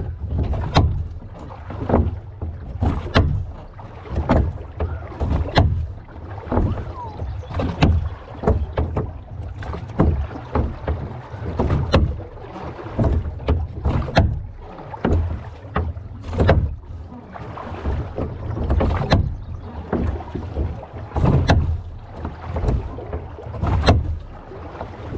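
Rowboat oars working in metal ring oarlocks, stroke after stroke: a sharp knock about every two and a half seconds, with lighter knocks between, over a low rumble.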